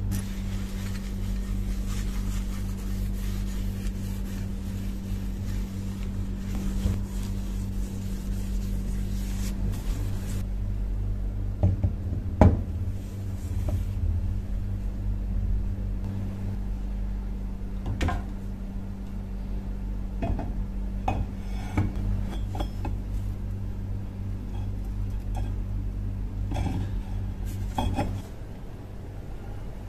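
Scattered metal clinks and knocks as steel shovel blades are handled on a wooden workbench, the loudest about twelve seconds in, over a steady low hum that stops near the end.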